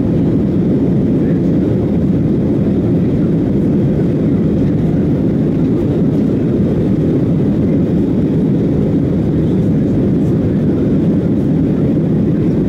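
Steady cabin noise of a Boeing 737-800 in flight: the CFM56 engines and the airflow heard from inside the cabin as an even, low rumble.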